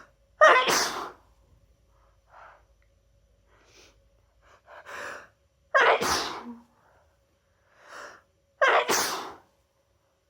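A person with a head cold sneezing three times, set off by chhinkni sneezing powder. Short gasping in-breaths build up before the second and third sneezes.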